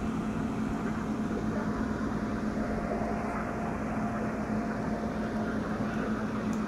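A steady mechanical hum with a rushing noise underneath, unchanging throughout.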